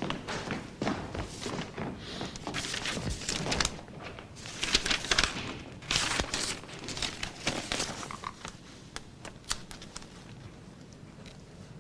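Sheets of paper rustling and crinkling as they are handled and leafed through, with scattered small clicks and knocks; the sounds thin out near the end.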